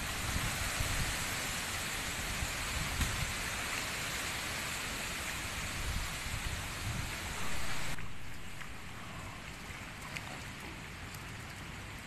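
Steady patter of rain, which turns abruptly fainter and duller about eight seconds in.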